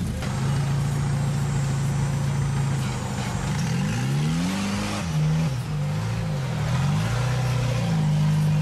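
Off-road Jeep engine crawling over rocks: it runs at steady low revs, then revs up about halfway through and swings up and down a few times on the throttle before settling again.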